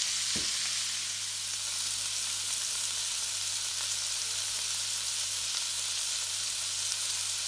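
Potato gnocchi and green peas frying in butter in a skillet: a steady, even sizzle.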